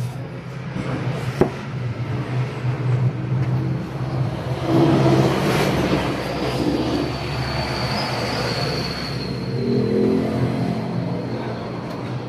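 Low, steady rumble of motor traffic that swells twice, with a single sharp click about a second and a half in.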